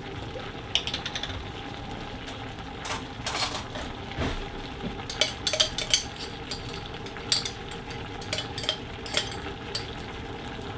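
A metal spoon clinking and scraping against a jar of ginger and garlic paste as it is opened and the paste scooped out: many short, irregular clicks. Underneath, the steady sound of a pot of curry simmering on the hob.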